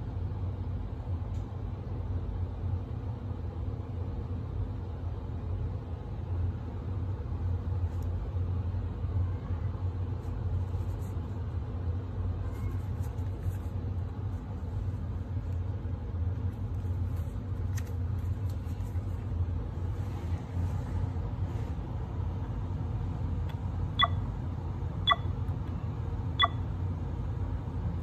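A steady low hum, with three short electronic beeps about a second apart near the end.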